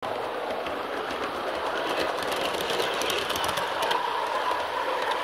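G scale garden model train running on its track, heard from on board: a steady rolling rattle of wheels on the rails, with quick clicking over the rail joints. A thin steady whine comes in about four seconds in.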